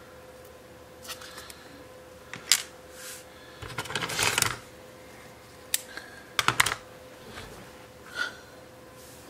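Scattered light clicks and taps of 3D-printed PLA plastic strips being handled and set down on a paper-covered table, with a longer rustle about four seconds in. A faint steady hum runs underneath.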